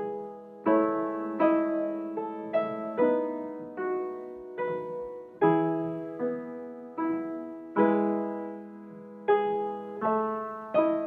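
Background piano music: a slow, gentle run of single notes and chords, each struck and left to ring and fade, a new one about every half second to second.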